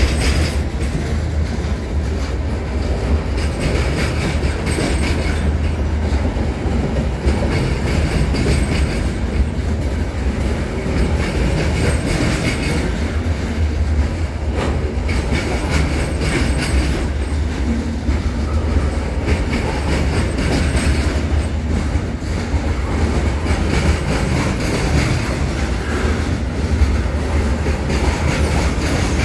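Freight cars (covered hoppers and tank cars) rolling past close by: a steady, loud rumble of steel wheels on rail, with repeated clacking as the wheels cross rail joints.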